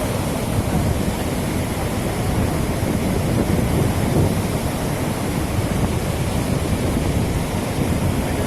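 Steady rushing roar of a large waterfall in flood, an even noise heaviest in the low end without a break.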